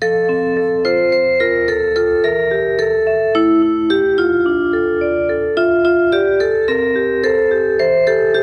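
Tokaido Shinkansen onboard chime: a melody of struck, held notes over sustained chords, played through without pause.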